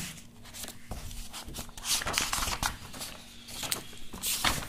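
Paperback textbook being handled and its pages turned: uneven paper rustles and light knocks, over a faint steady hum.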